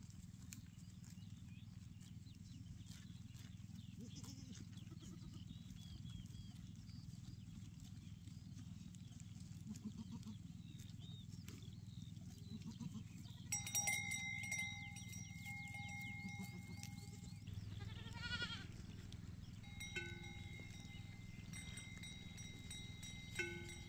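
Goats in a grazing herd bleating now and then over a low steady rumble. From about halfway through come clear, sustained ringing tones at several pitches, stopping abruptly once and then returning.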